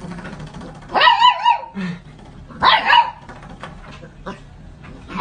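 Fluffy puppy giving two short, high-pitched barks, one about a second in and one near three seconds, at a spring doorstop under its paw.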